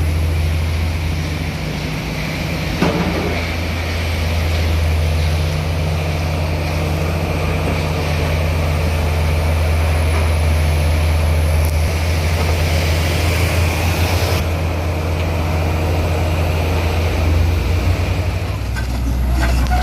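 Heavy diesel engine running steadily at a low, even pitch, with a single short knock about three seconds in.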